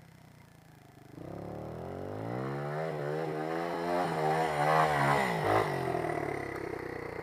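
Dirt bike engine revving on a steep rutted climb, its pitch rising and falling with the throttle. It gets louder from about a second in and is loudest as the bike passes close by, then eases off near the end.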